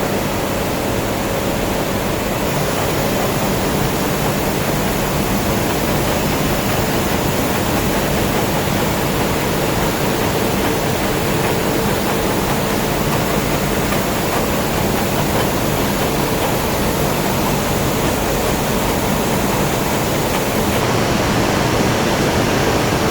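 Steady loud roar of a steel line's non-oxidizing furnace and its plant machinery: an even rush of noise with faint steady hums underneath.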